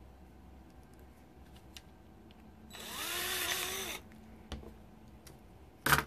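A DeWalt cordless drill runs for about a second, its pitch rising and then falling as it drills a hole in a small 3D-printed plastic part. A sharp click comes near the end.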